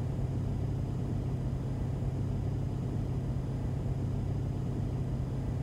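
Steady low background hum with nothing else over it.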